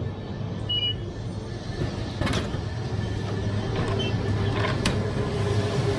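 Drink vending machine at work: the IC card reader beeps as a phone pays, a knock about two seconds in as the drink drops into the bin, then another short beep and two clicks as the clear plastic flap of the dispensing bin is pushed open. A steady low mechanical hum runs underneath.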